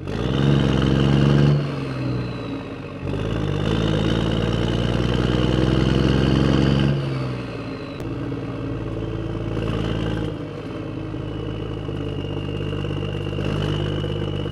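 A small motor running steadily with a buzzing hum, its pitch and loudness changing abruptly a few times.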